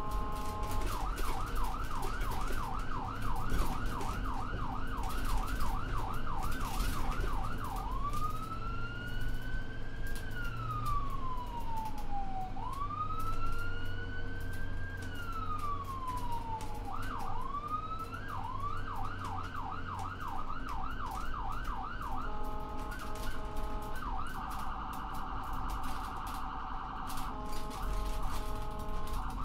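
Electronic emergency-vehicle siren working through its tones. It gives a fast yelp of about three sweeps a second, then two slow rising and falling wails, then the yelp again. Near the end come stepped steady tones and a rapid warble.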